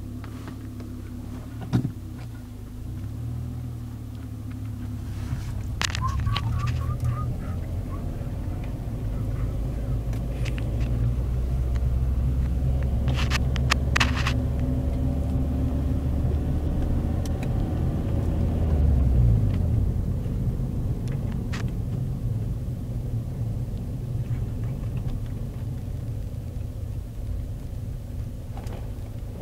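Car driving, heard from inside the cabin: a low engine and road rumble that grows louder through the first half and eases off toward the end, with a few short sharp clicks along the way.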